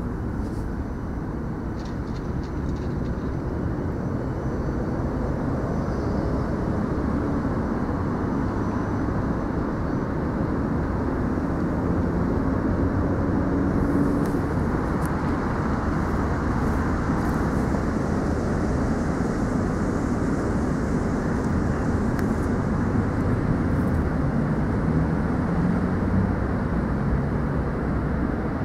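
Steady low rumbling background noise with faint wavering hums and no clear single source.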